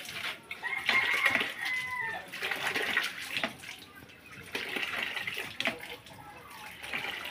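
Wet feathers being pulled by hand from a scalded chicken in a metal basin of water, with splashing and dripping. A chicken calls once in the background about a second in.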